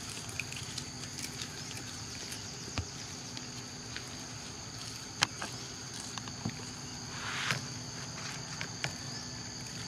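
Outdoor ambience: a steady high insect drone, with scattered sharp clicks and a brief rustle about seven and a half seconds in.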